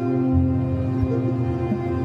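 Ambient background music: low sustained drones and held tones with a slow, meditative feel.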